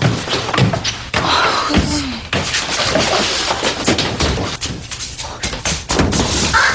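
A busy clatter of thumps, knocks and bangs, including slam-like hits, as someone hurries about a room, with a few brief vocal sounds mixed in.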